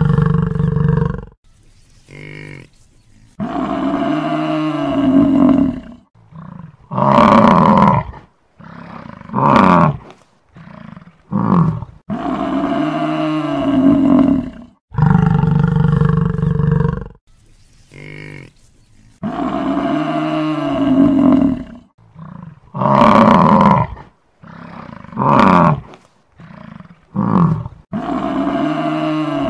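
Buffalo calling: a run of long, loud, low calls with a clear pitch, several bending up and then down, with shorter calls and brief pauses between them.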